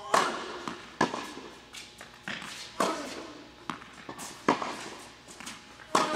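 Tennis rally on an indoor hard court: sharp pops of racket strings striking the ball and the ball bouncing, several a second at times, the loudest hits about every second and a half, each echoing briefly in the hall.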